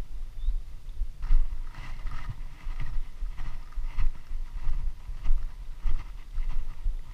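Handling noise on a body-worn action camera: irregular low thumping rumble, and from about a second in, scratchy rustling as knit-gloved hands turn over a freshly caught climbing perch.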